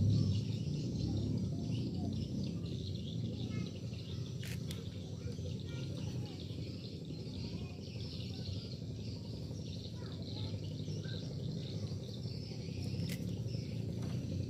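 Insects and birds chirping steadily in the open-air riverside background, over a constant low hum, with two sharp clicks, one about four seconds in and one near the end.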